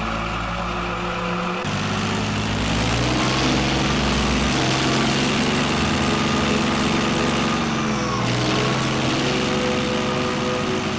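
Tank engine sound effect laid over the film: a heavy engine running steadily. The sound changes abruptly about a second and a half in, and again about eight seconds in.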